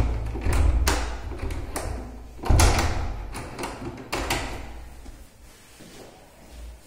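Wooden door thudding and knocking: a series of dull, heavy thuds, the loudest about two and a half seconds in, each dying away with some echo, fading off over the last two seconds.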